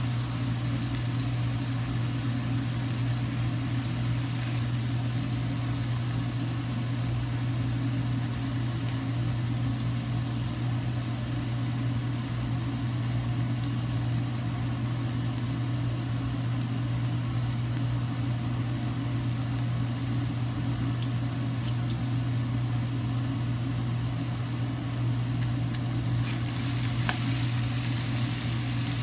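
Beef pieces frying and sizzling in a pan, over a steady low hum.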